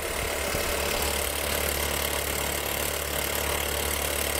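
Old film-projector sound effect: a steady mechanical whirr with a low hum and hiss, unchanging throughout.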